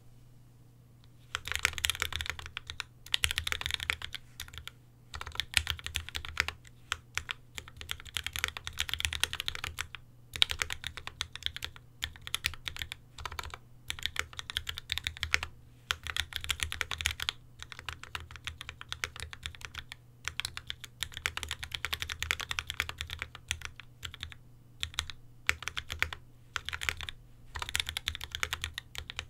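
Space65 custom mechanical keyboard with lubed Tealios V2 linear switches, GMK ABS keycaps and a carbon fibre plate, typed fast on a desk mat: rapid keystroke clatter in runs of a few seconds with short pauses between them. Typing starts about a second and a half in.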